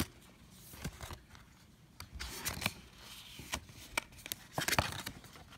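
Stiff printed paper instruction cards rustling and ticking as they are handled and turned over, with the rustling getting busier about halfway through.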